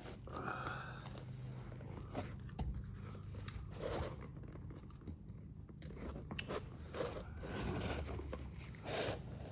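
Heavy canvas and leather tool bag being handled and shifted on a wooden workbench: irregular rustling and scraping with a few light knocks against the bench.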